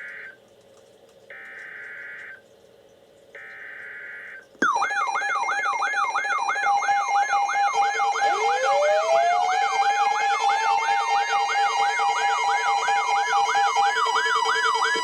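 Weather alert radio on a NOAA Weather Radio broadcast: the last short bursts of the digital alert header, a harsh screech about a second long with one-second gaps, then a loud electronic alarm. The alarm warbles up and down about two and a half times a second over a steady tone. A few seconds in, a second siren tone rises in pitch and holds. Together they mark the start of a new warning being broadcast.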